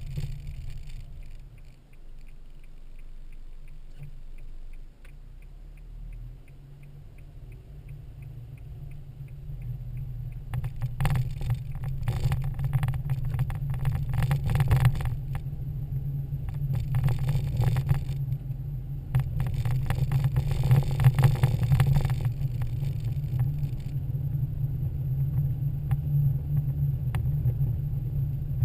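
Car engine and road noise heard from inside the cabin: a low steady rumble, quiet at first, then building as the car pulls away and gathers speed. Stretches of crackling noise come and go in the middle.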